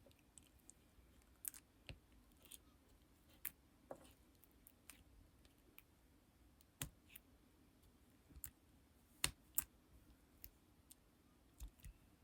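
Faint, irregular clicks and light taps from lipstick being handled, about ten in all, with the loudest pair close together about three-quarters of the way through.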